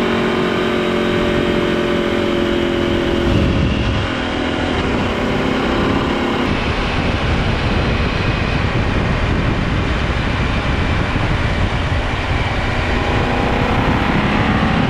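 Husqvarna Norden 901 Expedition's parallel-twin engine running under way through its stock muffler with the catalytic converter removed, with wind and tyre noise. The engine note holds steady at first, is more buried in rushing wind after about six seconds, and rises as the bike picks up speed near the end.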